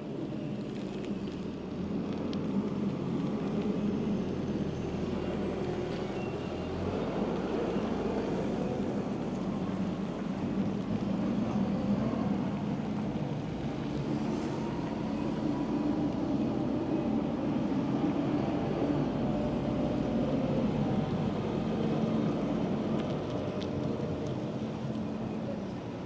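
City road traffic: motor vehicles running close by, a steady rumble with an engine hum that drifts slowly in pitch.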